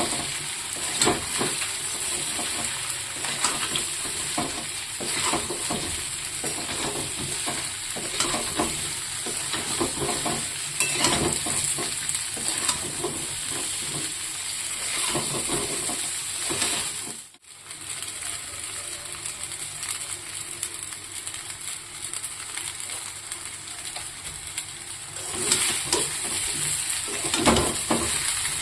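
Food sizzling in a hot pan while a utensil stirs it, scraping and clacking against the pan at irregular intervals. The sound breaks off for a moment a little past the middle.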